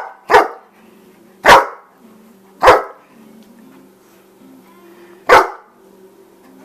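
A dog barking in single sharp, loud barks: one ending as the clip opens, then three more about a second apart, a pause, and a last bark near the end.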